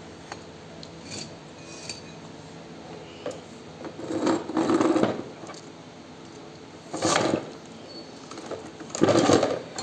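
Steel seed-drill parts knocking and scraping as a locking sleeve and bracket are worked onto the main shaft by hand: a few light clicks, then three louder spells of metal clanking and rubbing, a few seconds apart.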